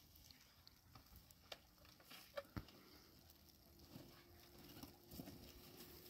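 Near silence with a faint, light patter and a few soft taps: wet snow falling on the tent fabric.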